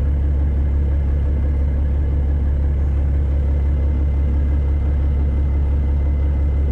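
Semi truck's diesel engine idling, a loud steady low drone with no change.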